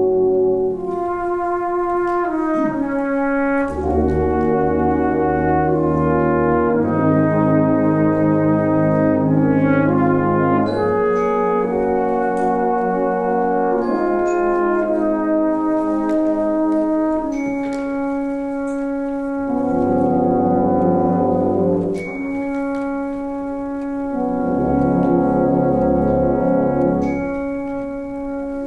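Brass band of cornets, horns, euphoniums, tubas and trombones playing a hymn arrangement in sustained, held chords. The low bass notes drop out for a stretch in the middle and come back toward the end.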